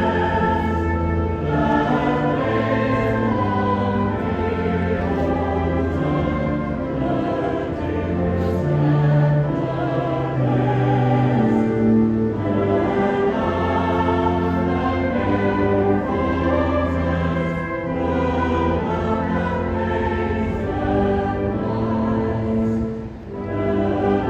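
A choir singing long, held notes in a slow piece, with a brief break between phrases near the end.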